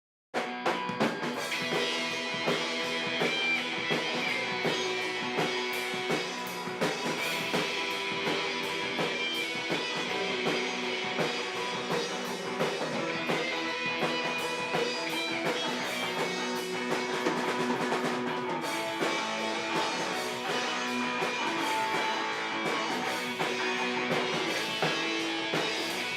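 Punk rock band music: electric guitars over a driving drum kit, starting abruptly about half a second in.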